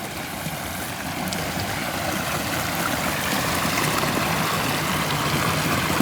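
Water from a pondless waterfall splashing and running down moss-rock spillways in a steady rush that grows gradually louder.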